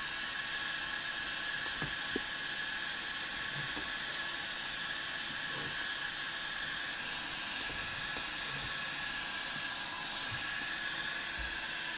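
Electric heat gun running and blowing hot air onto vinyl wrap film to soften it for stretching: a steady hiss of air with a thin fan whine. It cuts off suddenly at the very end, with a few light handling knocks along the way.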